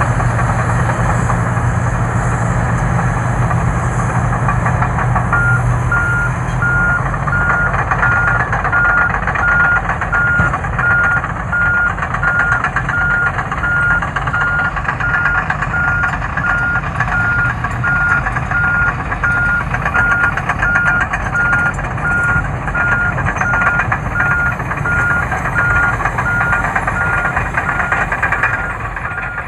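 Heavy Caterpillar diesel engines of a D8T bulldozer and a 657 scraper running hard during push-loading, with a steady low engine note that fades after the first several seconds. From about five seconds in, a reversing alarm beeps at an even rate over the engine noise.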